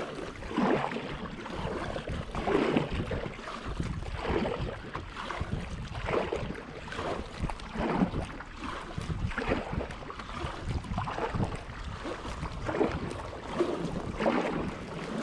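Kayak paddle strokes splashing in a quick, even rhythm, about three every two seconds, as the paddler drives the kayak toward shore, with wind rumbling on the microphone.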